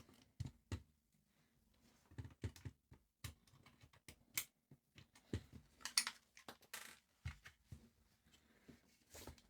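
Light, irregular clicks and taps of small tools and screws being handled while a vintage handheld CB radio is taken apart, with a few duller knocks among them.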